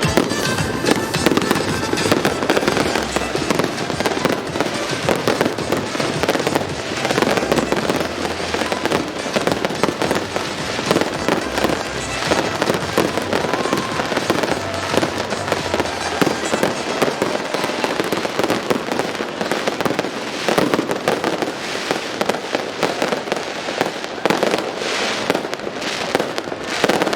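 Fireworks display going off continuously: many shell bursts and crackles in rapid succession, densest near the end, with music playing underneath.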